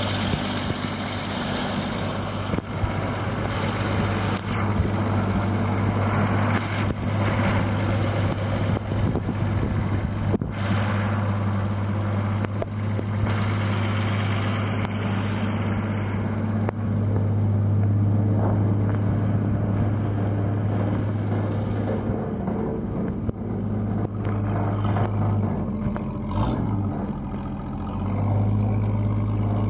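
1950 Chevrolet 3100 pickup's inline-six engine idling steadily, with a brief waver in its note a little before the end.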